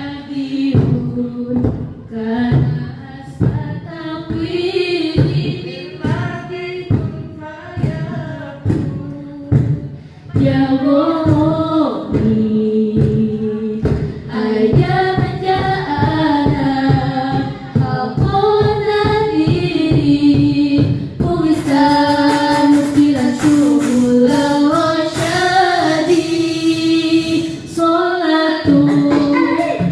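Girls' a cappella nasyid group singing in several-part harmony through microphones, over a steady percussive beat. The singing grows fuller and brighter about two-thirds of the way through.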